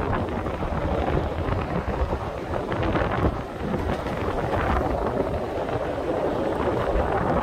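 Wind buffeting a smartphone microphone on a moving double-decker tram, over the tram's steady low running rumble.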